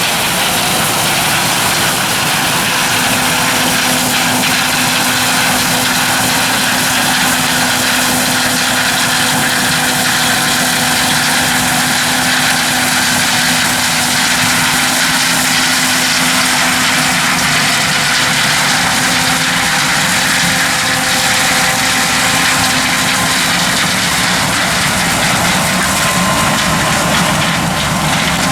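Heavy farm machinery engine running steadily under load: a loud, even drone with a faint steady hum, no change in pitch.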